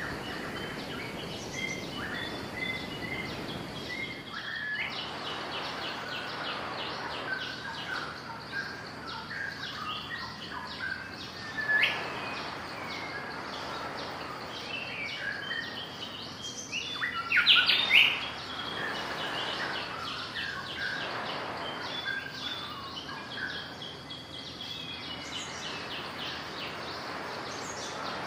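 Small birds chirping and trilling over steady outdoor background noise, with a couple of louder, sharper rising calls near the middle.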